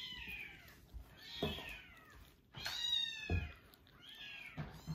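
Kittens mewing: four high-pitched cries that rise and fall, spaced about a second and a half apart.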